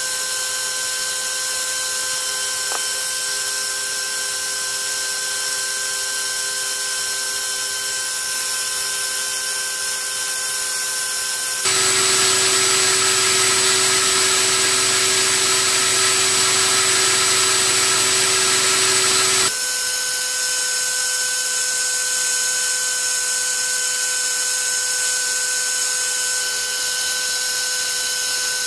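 A 900 kV 3536 brushless outrunner motor spins an 8x6 three-blade propeller at a steady part throttle, making a continuous whine with several steady tones over a rush of air. About twelve seconds in, the sound becomes louder, with a lower whine and more hiss. About seven seconds later it drops back to the first, steadier whine.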